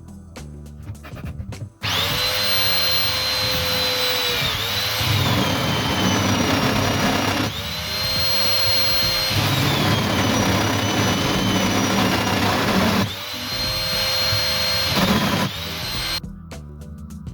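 Electric power tool motor running with a steady whine, its pitch sagging briefly as it takes load. It runs in three long stretches with short dips about 7 and 13 seconds in, then stops near the end.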